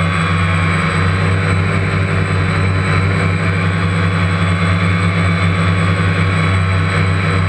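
Steady, loud motor noise with a strong low hum and a hiss over it, holding the same pitch throughout without revving up or down.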